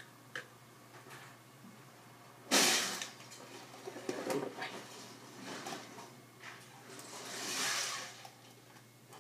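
Handling of a glue bottle and mixing bowl: scattered small clicks, one sharp clatter about two and a half seconds in, and a hiss that swells and fades near the end.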